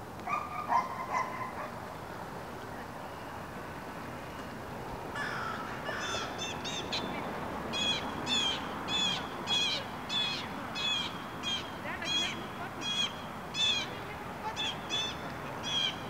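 A bird calling in a long run of short, harsh, high calls at about two a second, starting about six seconds in, after a brief lower call near the start.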